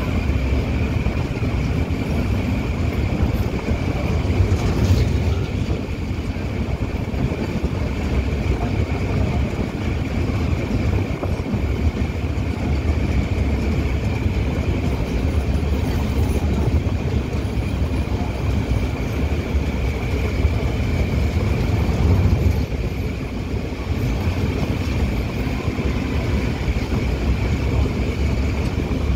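Steady rumble of a passenger train's wheels on the rails, heard on board as it runs over a long steel rail bridge, with a thin steady high whine over it.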